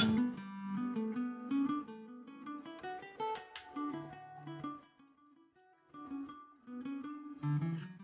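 Background music on acoustic guitar: single plucked notes in a melodic line, with a strum at the start and a brief pause about halfway through.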